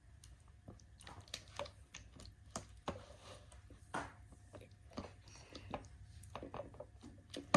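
Glue slime being stirred in a bowl: irregular sticky squelches and small clicks of the stirring tool, a few every second.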